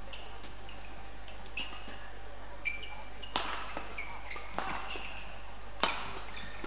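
Badminton rally: rackets striking the shuttlecock, the two loudest hits about halfway and near the end, among frequent short squeaks of shoes on the court mat.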